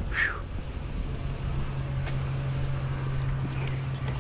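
A motor vehicle engine running with a steady low hum over outdoor background noise, with a brief squeak right at the start.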